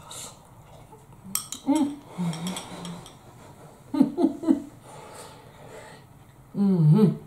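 A spoon clinking against a bowl, then a woman's wordless 'mm' sounds and vocal noises through a mouthful of scalding-hot curry, the loudest a longer wavering one near the end, as the food burns her mouth.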